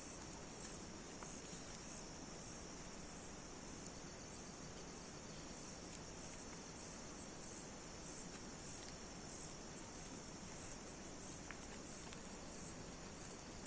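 Crickets chirping steadily and faintly in a high, pulsing trill over low background hiss.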